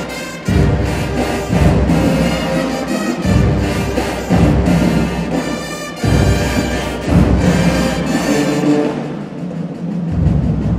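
High school marching band playing: sousaphones, trombones, trumpets and other brass in loud phrases separated by short breaks.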